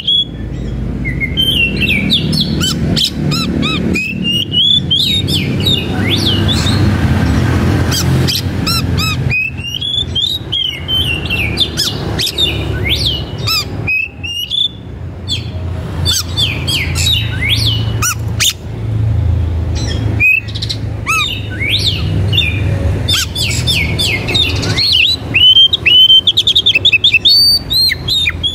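Birds chirping and calling: many short, quickly rising and falling chirps, with a run of loud rapid chirps near the end, over a low rumble.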